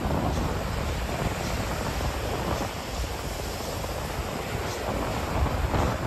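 Wind rushing over the microphone: a steady, even rumbling hiss with no distinct events.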